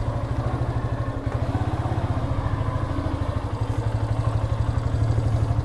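Yamaha FZ-S motorcycle's single-cylinder engine idling, a steady fast pulse.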